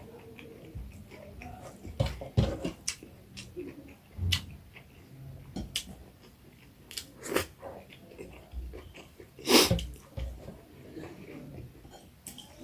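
Close-miked eating: chewing with wet mouth clicks and smacks at an uneven pace, and one louder noisy burst about two-thirds of the way through.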